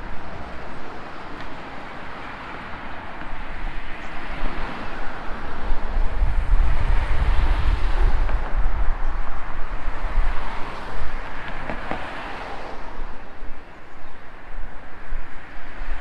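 Steady outdoor rushing noise that swells and eases, with gusts of wind buffeting the microphone as low rumbles, strongest in the middle of the stretch.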